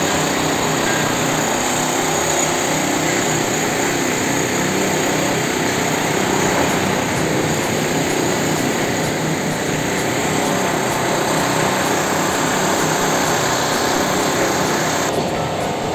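Steady engine and vehicle noise: a motor running without letting up, over a background haze of road traffic.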